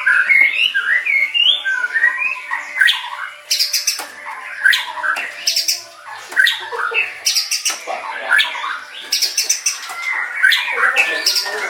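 White-rumped shama (murai batu) singing a continuous, varied song of quick whistled phrases that bend up and down, broken several times by sharp clicking notes.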